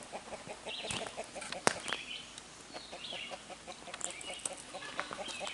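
Chickens clucking in short, quick notes, with a few higher calls and two sharp clicks about one and two seconds in.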